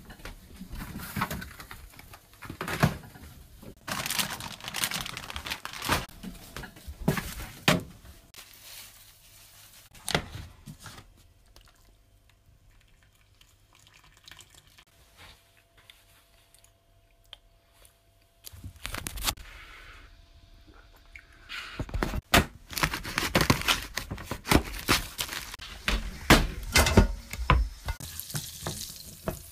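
Kitchen handling noises: knocks, clinks and rustling as food and cookware are moved about. Near the end, garlic in hot fat starts sizzling in a frying pan.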